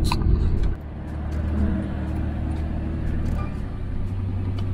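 Steady low engine and road hum heard inside a vehicle's cabin while driving, louder for about the first second, then settling to an even hum.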